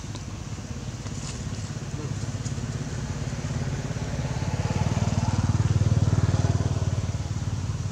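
A vehicle engine running steadily and passing by, growing louder to a peak about six seconds in and then fading.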